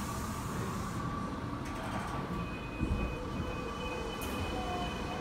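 Tokyo Metro Marunouchi Line subway train running, heard from inside the car: a steady rumble of wheels on track, with a faint high whine joining about halfway through and a small knock just after.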